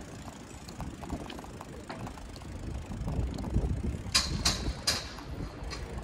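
Bicycle riding along a paved path: a low, uneven rumble of tyres and wind. In the last two seconds come about six sharp, irregular mechanical clicks.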